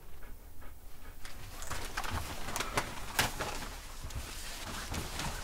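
A few sharp clicks and knocks from a metal apartment mailbox being shut, with paper mail rustling.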